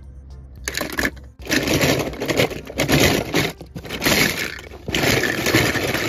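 Die-cast toy cars scraping and clattering against each other and the sides of a plastic tub. The noise starts loud less than a second in and goes on in uneven bursts.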